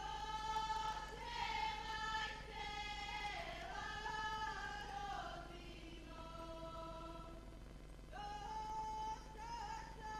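Women's voices singing a Serbian folk song together, long high held notes that bend and slide at the phrase ends, with a quieter stretch of lower held tones about six seconds in before the high singing returns.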